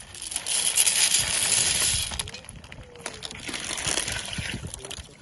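Dry pasta being poured into a camp oven of simmering stew, a dense clattering rattle of many small pieces. It is loudest in the first two seconds, then eases off.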